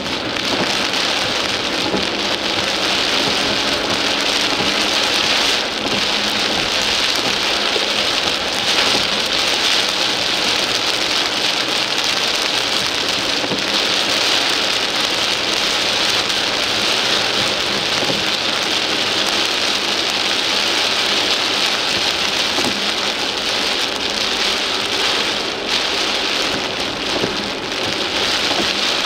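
Torrential rain pelting the windshield and roof of a moving car, heard from inside the cabin as a steady, dense hiss.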